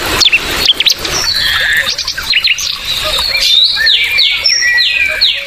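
Songbirds chirping, several calls overlapping, with quick falling whistled notes repeated in a run in the second half.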